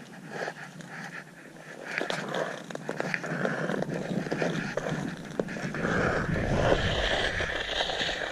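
Ice skate blades gliding and scraping over clear black pond ice, with scattered sharp clicks, growing louder about two seconds in. A low rumble joins near the end.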